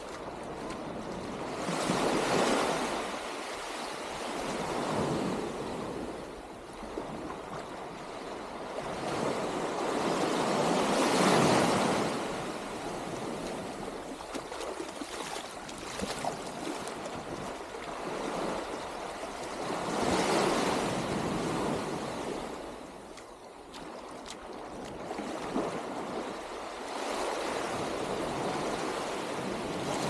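Small waves breaking and washing up a sandy beach. The surf swells and fades every few seconds, with the loudest surges about two, eleven and twenty seconds in.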